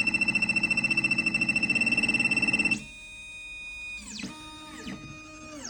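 Xhorse Dolphin II key machine's stepper motors running as it decodes a house key. For about three seconds there is a rapidly pulsing electronic whine; it then turns to smoother tones whose pitch drops as the motors slow, stopping just at the end.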